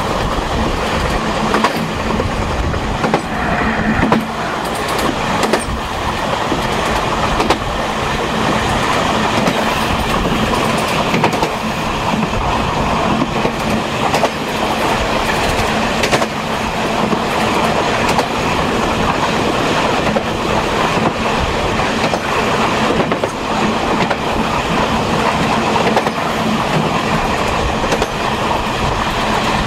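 Taiwan Railways Chu Kuang express passenger car running on the rails, heard from inside the rear parlor car: a steady rumble with a low hum and scattered clicks from the wheels passing rail joints.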